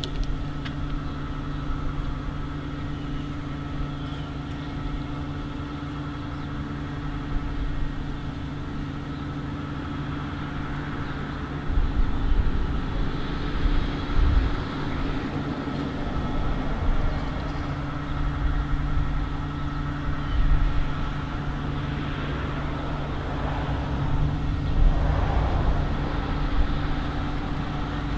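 A steady low mechanical hum, like an engine or motor running at idle, with uneven surges of low rumble from about halfway through.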